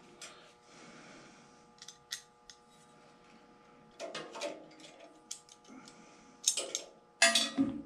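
Hex key working the Allen screws on the metal blade guard of a Delta 14-inch bandsaw: scattered small metallic clicks and ticks, with a louder, brief clatter near the end.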